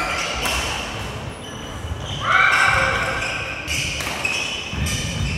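Badminton in a sports hall: a sneaker squeaking on the wooden gym floor for about a second, with several sharp smacks of rackets hitting shuttlecocks and feet landing, echoing in the hall.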